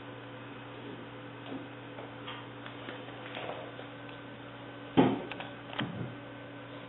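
An English springer spaniel puppy's paws and claws on a hardwood floor: scattered faint clicks, a sharp knock about five seconds in, then a couple of softer clicks, over a steady electrical hum.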